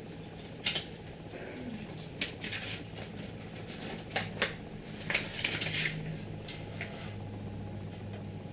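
Hands handling and fitting parts on a 3D printer's build plate: scattered clicks, taps and short scrapes, several in quick succession around four to six seconds in, over a steady low hum.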